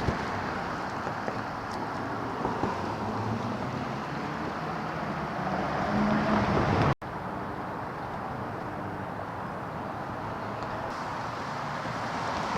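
City street traffic: a steady wash of car engines and tyre noise, swelling as a vehicle passes close about five to seven seconds in, then cutting off abruptly and carrying on at a steady level.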